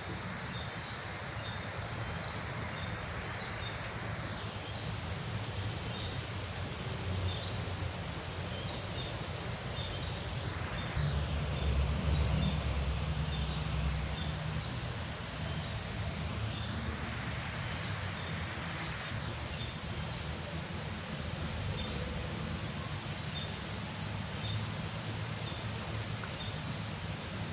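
Steady rush of flowing river water, with faint short high chirps repeating throughout. A low rumble swells for a few seconds in the middle.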